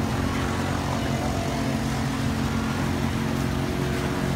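Engine running at a steady speed, a constant low droning hum that does not rise or fall.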